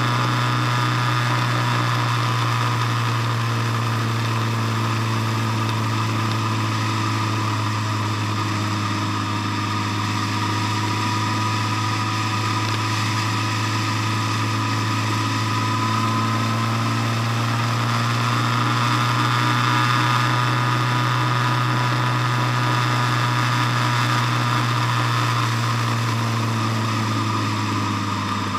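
Vehicle engine running steadily at cruising speed, with tyre and road noise. The drone holds an even pitch, drifting only slightly.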